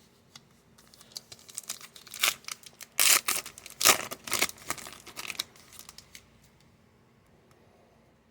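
A trading card pack wrapper being torn open and crinkled. There is a run of sharp rips and crackles from about a second in until about five and a half seconds in, loudest in the middle.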